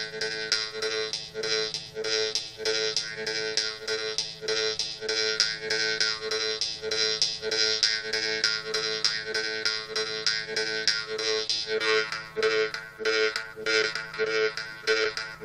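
Jew's harp (vargan) played: a steady twanging drone, plucked in a quick even rhythm, with the bright upper overtones shifting as the mouth changes shape.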